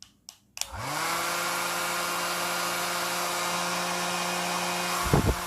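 Repaired hair dryer switched on after a few clicks. Its motor spins up within about half a second and runs with a steady whir and rush of air, with a couple of low bumps near the end. The fan was broken and clogged with hair and dust; now cleaned and glued back together, it runs smoothly, and the sound is called good.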